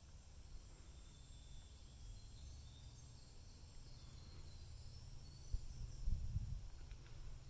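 Faint outdoor ambience: a low rumble with a few bumps about five and a half to six and a half seconds in, as the hand-held camera is moved. Faint, short, high chirps sound in the background.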